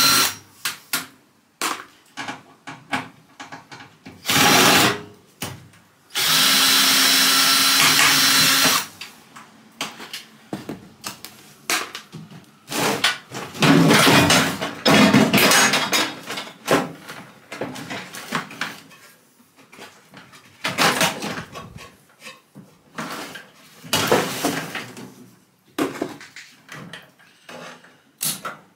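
Makita 18V cordless drill driver running in short bursts to back out casing screws: a brief run about four seconds in and a longer steady whine of about two and a half seconds a little later. After that come irregular knocks and scrapes of the microwave's sheet-metal cover being worked loose and lifted off.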